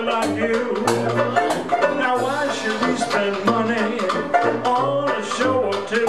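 Background music: an upbeat song with a steady beat, percussion and a repeating bass line.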